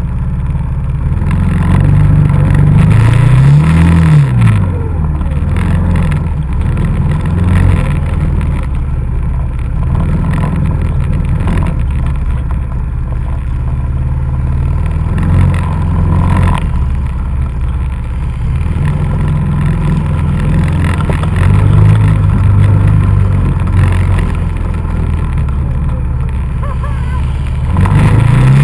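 ATV engine running under way, revving up and dropping back several times, with a sharp rev about four seconds in and another rise near the end.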